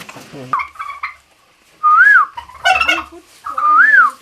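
A person whistling: two short, loud notes that each rise and then fall, about two seconds apart, with murmured voice sounds in between.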